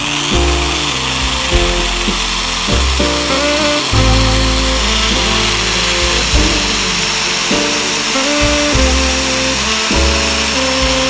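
Background music, with an electric power tool running steadily underneath as a high hiss.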